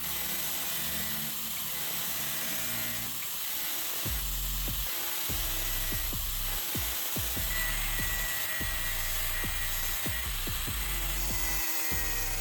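Power grinder running steadily, grinding down the end of a small threaded steel rod, with background music.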